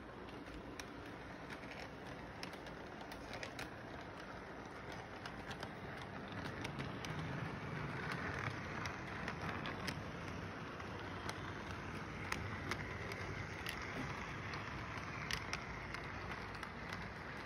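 Model train running on its track: a steady whir from the locomotive's motor and wheels, with many irregular light clicks as the cars roll over the rail joints, getting somewhat louder about a third of the way in.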